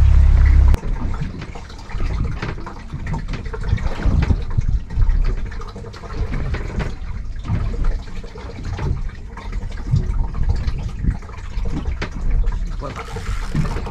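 A boat engine's low hum cuts off suddenly under a second in. Irregular water sloshing and lapping follows, with uneven low splashes.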